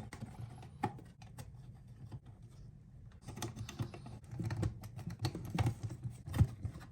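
Small clicks and taps of a screwdriver driving the mounting screws of a new light switch into its wall box, sparse at first and coming thick and fast from about halfway through.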